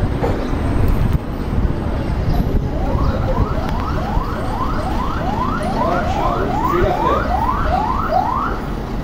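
Road traffic rumbling past, with a distant electronic siren yelping: a quick rising whoop repeated about two or three times a second, starting about three seconds in and stopping shortly before the end.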